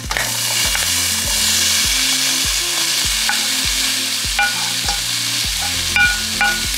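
Pepper strips dropped into a pan of carrots frying in hot olive oil, sizzling loudly. The sizzle jumps up sharply at the start and then holds steady as the vegetables are stirred.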